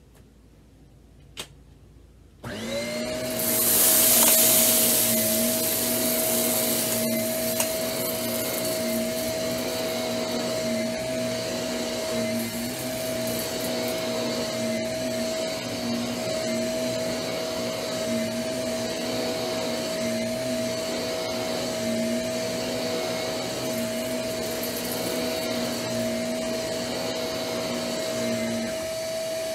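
Shark Navigator upright vacuum cleaner switching on about two seconds in and running steadily, its motor giving a constant whine over the rush of suction as it is pushed over uncooked rice scattered on carpet.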